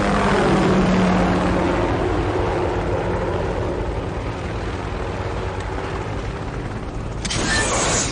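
Helicopter's turbine and rotor running close by. Near the end a loud hissing rush begins: a rocket being fired from the helicopter.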